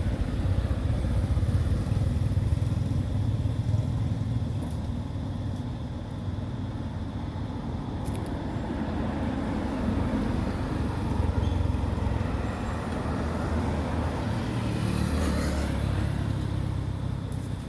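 Steady low rumble of outdoor background noise, swelling and easing slowly.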